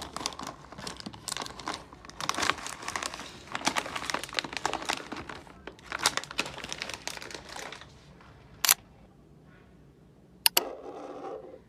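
Packaging crinkling and rustling as a newly bought item is unwrapped and handled, for about eight seconds. It is followed by a few sharp clicks near the end.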